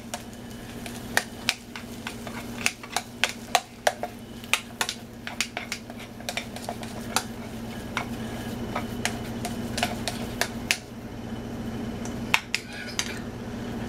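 Metal spoon stirring mashed potatoes in a stainless steel pot, with irregular clinks and taps of spoon on pot. A steady low hum runs underneath.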